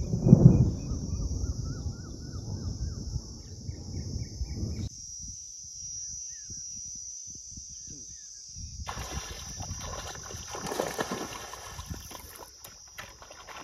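A hooked fish thrashing and splashing at the water's surface, loudest about half a second in, over wind noise and chirping birds. After a sudden cut it goes quiet but for a steady high hiss, and then water sloshes and splashes as a man wades chest-deep after the fish.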